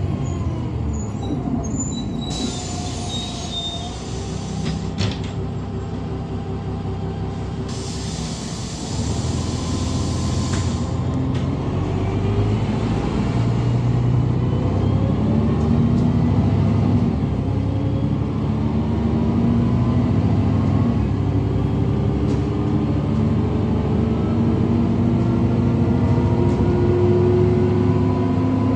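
Cabin sound of a GolAZ-5225 diesel bus on the move: the engine runs steadily, then grows louder about ten seconds in and pulls up in pitch in several successive rises as the bus accelerates through its gears. Two hisses of air, each a couple of seconds long, come in the first ten seconds.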